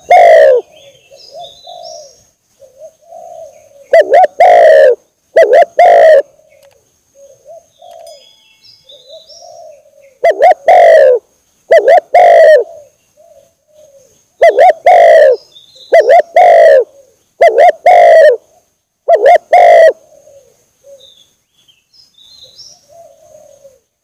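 Spotted dove (tekukur) lure call: a recorded dove cooing in loud, distorted pairs of coos, with softer coos between them. Faint chirps of other small birds can also be heard.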